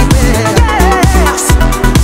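Electronic dance music with a steady kick beat of about two beats a second under a wavering synth melody.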